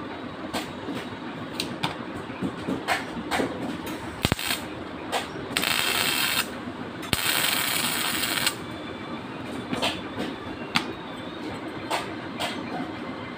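Two bursts of electric arc welding on a stainless steel bed frame, each a loud steady hiss lasting about a second, around the middle. Light metallic clicks and taps are scattered before and after them.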